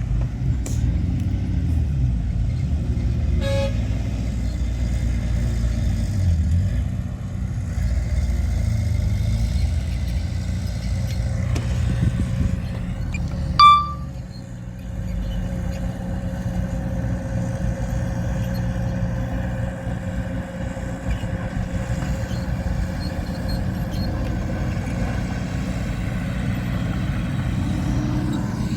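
Heavy earthmoving machinery running steadily with a deep diesel rumble. A short, high horn beep sounds about halfway through, and a fainter short tone comes a few seconds in.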